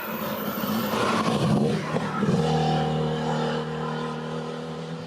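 Rally car engine as the car drives by on a transfer section. The sound swells to its loudest about two seconds in, then settles into a steady engine note that slowly fades.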